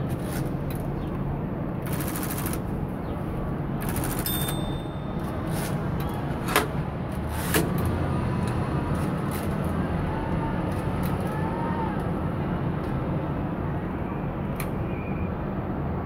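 Smith-Corona Electra 110 electric typewriter running: a steady motor hum under the clicking of its mechanism. There are dense bursts of rapid clicks about two and four seconds in, and two louder single clicks a second apart in the middle.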